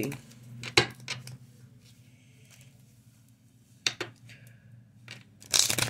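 Tarot cards being handled at a table: a few sharp clicks and taps near the start and again around four seconds in, then a short rustle near the end.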